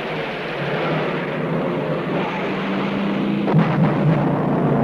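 Propeller aircraft engines droning under a loud rushing noise, with a few sharp blasts about three and a half seconds in.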